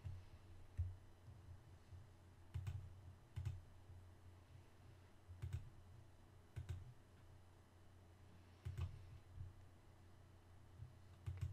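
Faint computer mouse clicks, about seven single clicks spaced irregularly, over a steady low hum.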